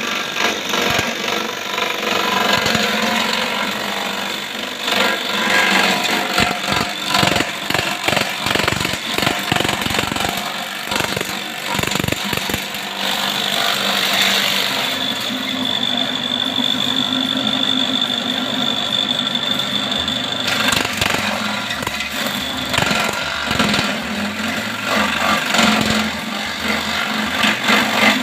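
Home-made electric grass chopper running, an electric motor driving a spinning steel disc with two blades, with rapid cracking as grass and stems are fed in and cut. A steady high whine rises over the noise for several seconds midway.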